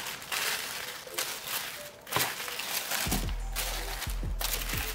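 Tissue paper rustling and crinkling in bursts as it is unfolded by hand. About three seconds in, background music with a deep bass beat comes in.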